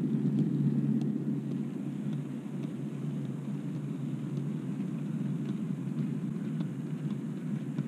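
OO gauge model goods wagons rolling past close by on model track: a steady rumble of wheels on rails, with faint clicks as the wheels cross the rail joints. Slightly louder in the first second or so, then steady.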